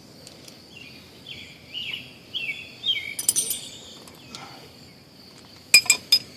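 Metal hand tools clinking as a 15 mm socket is fetched: a few light clinks about three seconds in, and a louder cluster of three or four sharp clinks near the end. Behind them, a bird calls a run of short chirps and an insect drones at a steady high pitch.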